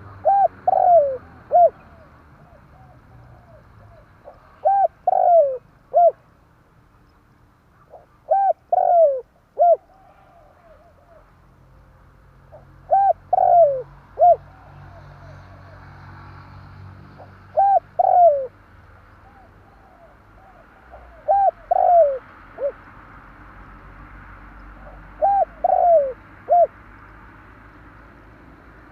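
Spotted dove cooing: seven phrases about four seconds apart, each made of a couple of short coos, a longer falling coo and a short last note.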